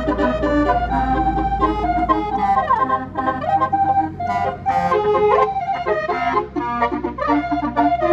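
A bus's telolet basuri horn playing a tune, several organ-like tones sounding together and changing notes quickly, with a low rumble under the first two seconds.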